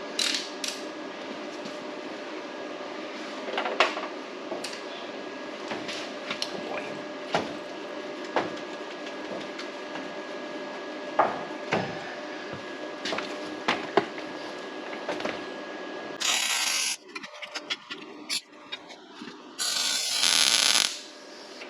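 Two short welding tacks near the end, each a loud burst lasting about a second, the second coming about three seconds after the first. Before them, a steady hum with scattered clicks and knocks from metal parts being handled.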